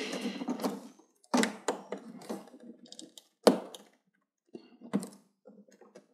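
Plastic clicks, knocks and scraping as a flat-screen TV's plastic casing is worked loose by hand, with a sharp crack about three and a half seconds in.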